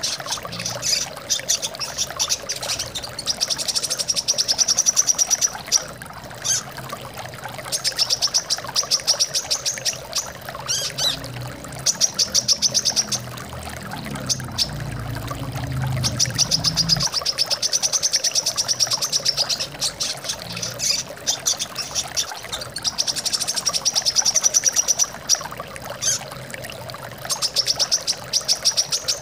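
Brown-throated sunbird (kolibri kelapa) singing in repeated bursts of rapid, high trilling, each lasting a second or few, over a steady sound of flowing water. A low rumble comes in briefly about halfway through.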